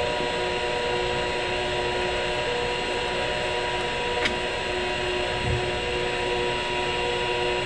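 Milling machine running slowly on a variable frequency drive, with its power feed taking the cutter down into a hard rubber roller: a steady hum with a few held tones. One sharp click about four seconds in.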